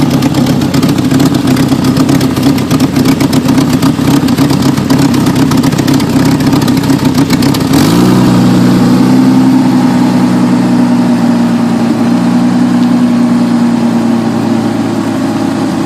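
Jeep Cherokee XJ's 4.0 straight-six engine running, choppy and uneven through the first half; about halfway it rises briefly and settles into steadier running. The engine is one whose owner reports misfiring and poor power.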